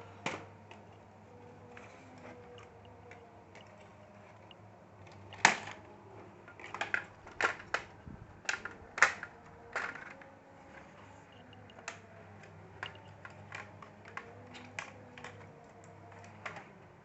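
Plastic clips of an HP Compaq CQ40 laptop casing clicking and snapping as the case is pried apart with a card: irregular light clicks, with a run of louder sharp snaps around the middle.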